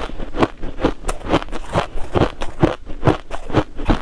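Crushed ice being chewed in the mouth: a fast run of crisp crunches, about three a second.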